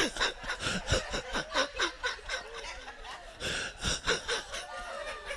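Laughter at a joke, coming in quick rhythmic bursts of several a second and then trailing off into looser chuckles.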